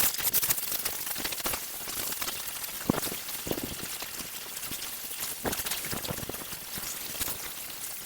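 KVAOK pressure washer's jet blasting dirt off a concrete porch: a steady hiss of spray with a constant crackle of water spattering off the surface.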